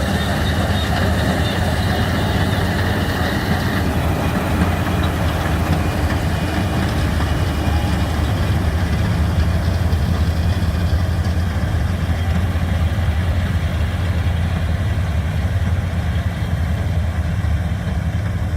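Combine harvester engine running steadily at a constant speed, a deep even hum, with a higher hiss above it that drops away about four seconds in.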